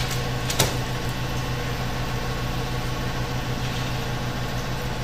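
A steady low machine hum runs throughout, with two short crinkles of plastic wrap being handled in the first second.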